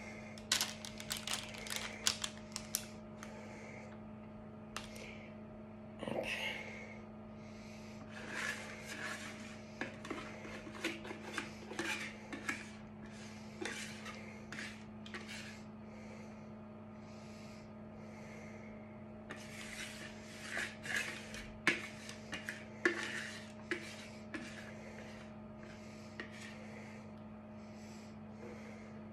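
Metal kitchen utensils clinking and scraping against cookware in irregular bursts with short pauses, over a steady low hum.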